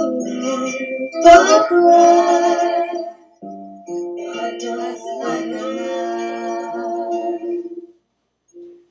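Home multitrack recording of several stacked vocal parts singing long held notes in harmony, the sound muddied from being re-recorded over the track again and again. The singing breaks off briefly about three seconds in and again near the end.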